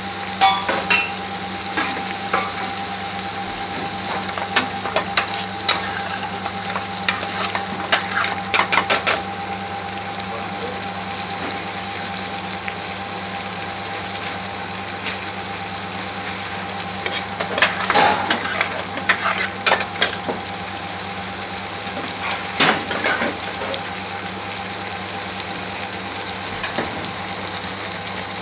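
A metal spoon stirring thick curry in a steel pan, scraping and clinking against the pan in several short bouts, over the steady sizzle and bubbling of the simmering sauce and a constant background hum.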